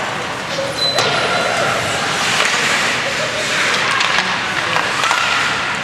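Spectators' voices shouting and cheering in an ice hockey rink, over the rink's general noise, with a sharp knock about a second in.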